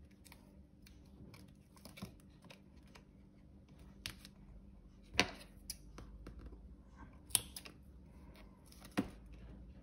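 Faint handling of double-sided tape and paper on a desk, as tape is laid and cut along the edge of a paper pocket. A few sharp snips and clicks come a second or two apart, the loudest about five seconds in.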